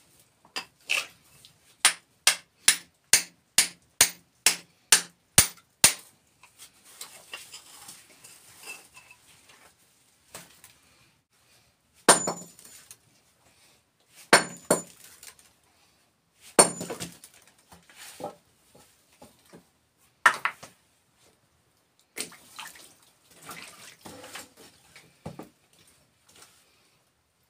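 Hammer striking a steel chisel on rock, about a dozen quick, evenly spaced metallic blows, to break up rock met in the trench. This is followed by scraping of loose stone and then a few heavier single strikes two to four seconds apart as a long steel bar is driven against the rock.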